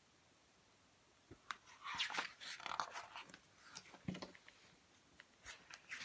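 Stiff pages of a picture book rustling and crackling as they are handled and turned, a string of short crackles and taps starting about a second in.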